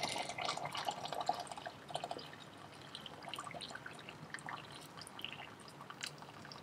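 Hot water poured from a kettle into a water-bath canning pot holding jars, splashing and trickling with many small drips; louder in the first two seconds, then a thinner, quieter trickle.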